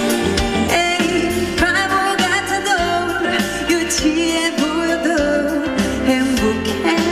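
A woman singing a pop song live into a handheld microphone over amplified backing music.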